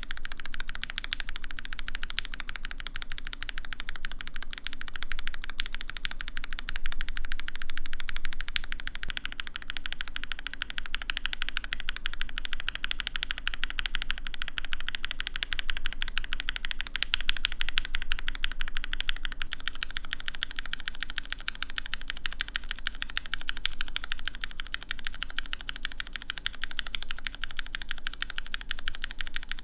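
Continuous fast typing on a Mode Eighty mechanical keyboard fitted with linear switches, gasket-mounted with an aluminum plate: a dense, steady patter of keystrokes with no pauses.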